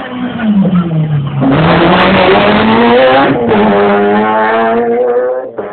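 Rally car passing close by at full race pace. Its engine note falls, then it accelerates hard, the revs climbing steeply, with a shift up into the next gear about three and a half seconds in and the revs climbing again.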